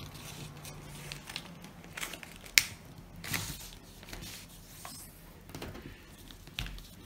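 A sheet of A4 paper being folded by hand: soft rustling and crinkling as an edge is folded over to a crease and pressed down, with a single sharp tick about two and a half seconds in.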